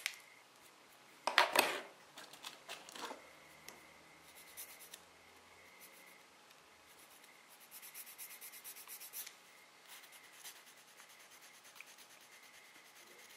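Nail file rubbing over a hardened flour-and-glue nail extension in short scratchy strokes, with a louder scrape about a second in and a quick run of rapid filing strokes near the middle.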